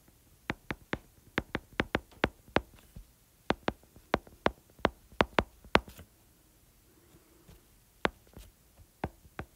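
A stylus tip tapping and clicking on an iPad's glass screen while handwriting: a quick, irregular run of sharp taps, a pause of about two seconds, then a few more taps near the end.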